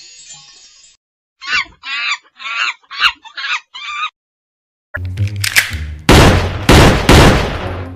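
A chicken sound effect: six short clucks in quick succession. About a second later comes a much louder noisy effect, with three loud blasts over a low hum.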